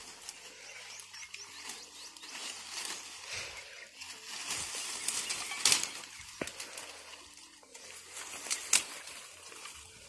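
Leaves rustling and dry twigs snapping as a person pushes into and breaks back a dense lantana thicket by hand, with a few sharp cracks, the loudest just before the middle and again near the end.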